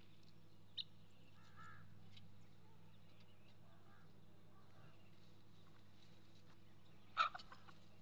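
Free-range fowl (chickens and guineafowl) calling: a soft call about two seconds in, a few faint ones mid-way, and a loud harsh call near the end followed by a few quick short ones.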